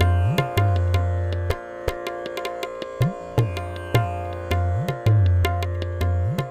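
Indian classical-style music: a tabla playing quick strokes, its deep bass drum bending up in pitch about every second and a half, over a sustained drone of pitched strings.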